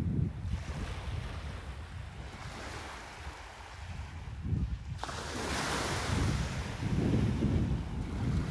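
Wind buffeting the microphone in gusts over the hiss of breaking sea surf on a beach; a louder rush of surf sets in about five seconds in.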